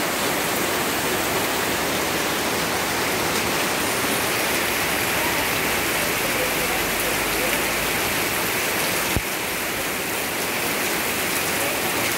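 Torrential rain pouring steadily onto a paved path and wet leaves, a dense even hiss of drops. A single sharp click about nine seconds in, after which the rain sounds slightly quieter.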